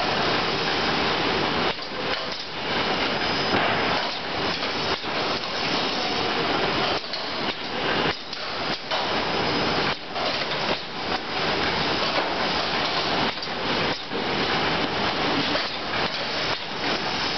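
Automated cucumber trolley unloading machine running: a continuous mechanical din with many sharp knocks and clatters of plastic crates on its roller conveyors and lift.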